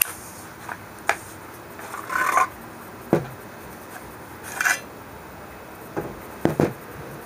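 Remington Model 11 semi-automatic shotgun being taken down: the steel barrel slides forward off the magazine tube with brief scraping, and the parts are handled and set down, giving scattered light metal and wood clicks and knocks.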